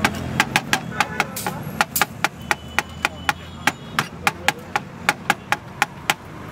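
Meat cleaver chopping cooked mutton on a plastic cutting board: a steady run of sharp knocks, about three to four chops a second.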